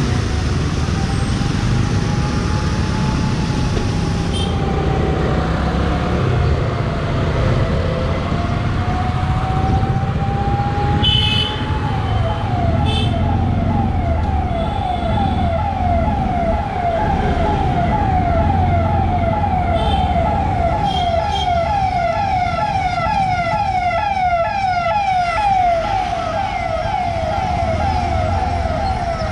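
Electronic emergency-vehicle siren sounding over road traffic: a slow rising-and-falling wail for about twelve seconds, then switching to a fast, repeating yelp. Engine and traffic rumble runs underneath.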